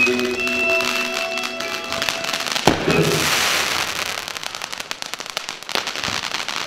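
Fireworks: a sharp bang about two and a half seconds in, followed by a second of hissing crackle, and another sharp report near the end. Show music plays over the first part, then drops away.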